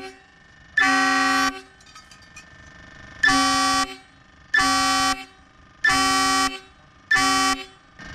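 Korean Kiwon air horn sounding five short blasts of a steady chord, each about half a second long, with brief pauses between them.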